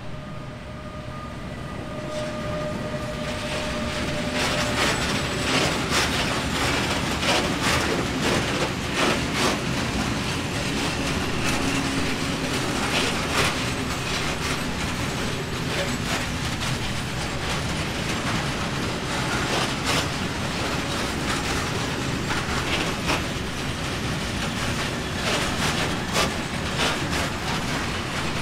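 A Bombardier TRAXX class 186 electric locomotive approaches with a steady whine. From a few seconds in, a long freight train of open coal wagons rolls past with continuous wheel rumble and repeated clacks and bangs as the wheels cross the rail joints.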